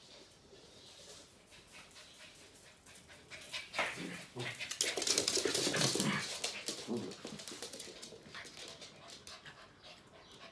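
Two West Highland White Terriers play-fighting, with short dog vocal sounds and scuffling. It is quiet at first, and busiest and loudest from about three and a half seconds in to about seven seconds, then it eases off.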